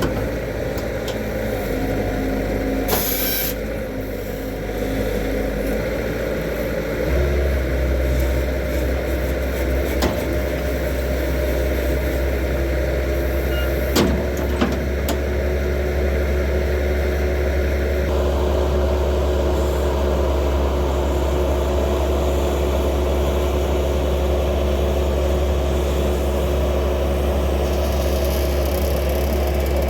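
Vehicle engine and road noise heard while driving: a steady low hum that steps up about seven seconds in, as the vehicle gathers speed, then holds even. A brief hiss comes about three seconds in.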